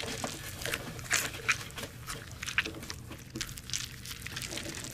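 A hand rummaging through paper tickets in a container, giving irregular rustling and crinkling.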